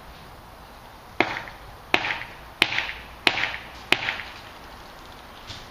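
Axe chopping into a tree trunk: five sharp, evenly spaced strikes, about one and a half a second, each with a short ringing tail.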